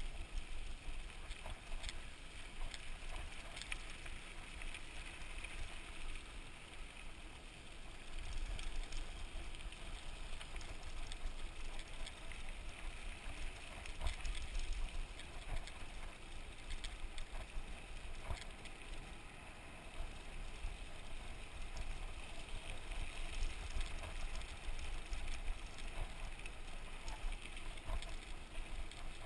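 Mountain bike being ridden along a dirt trail: steady tyre and wind noise with a low rumble and scattered clicks and rattles from the bike.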